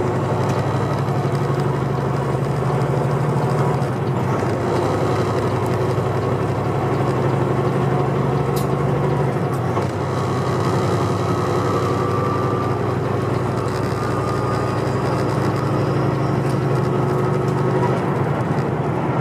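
Semi-truck's diesel engine droning steadily at highway cruising speed, heard from inside the cab along with tyre and road noise.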